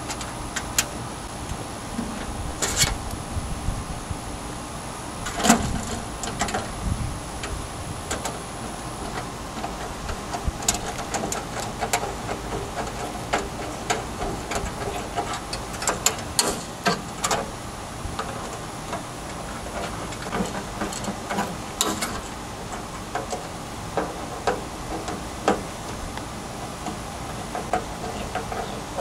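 Screws being turned into a stainless steel sheet-metal enclosure with a hand driver: scattered sharp metal clicks and light scrapes. A steady mechanical hum runs underneath.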